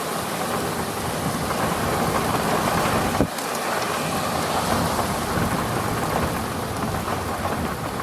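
Heavy rain pouring on and around a car, a steady rushing hiss with low rumbling underneath; a brief knock about three seconds in.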